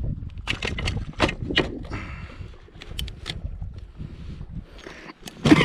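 Close handling noises of unhooking a small bass in a kayak: a run of sharp clicks and knocks with short scraping rustles over a low rumble, and a louder knock and rustle near the end.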